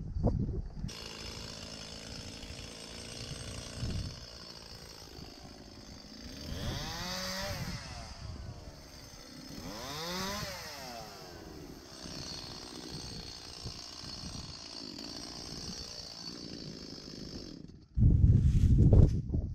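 Chainsaw running steadily, revving up and back down twice as it cuts olive tree branches during pruning. Near the end a loud low rumble cuts in.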